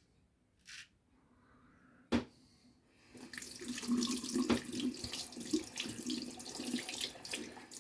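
Water tap running into a bathroom sink and splashing, starting about three seconds in, after a single sharp click.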